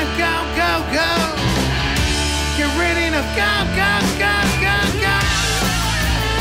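Live punk rock band playing loud electric guitar, bass and drums, with a lead line of bending, sliding notes over the steady low end.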